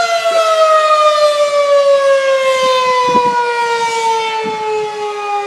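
Federal Signal 2001-SRN electromechanical civil defense siren winding down in the attack signal, its pitch falling steadily and its level slowly dropping. The siren has stopped rotating, so it holds one direction instead of swelling louder and softer as it turns. The owner first took this for a stuck rotor, but the city halts rotation on the last wind-ups and downs of the attack signal.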